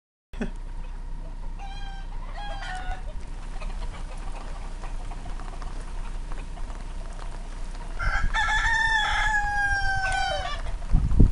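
Cockerel crowing: a few short clucking calls about two seconds in, then one long crow of about two seconds, slightly falling in pitch, near the end, over steady rain. A loud low thump right at the end.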